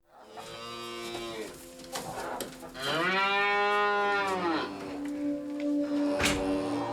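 Cow mooing: a shorter moo near the start, then a longer, louder moo about three seconds in that rises and falls in pitch, followed by a lower, steadier drawn-out call.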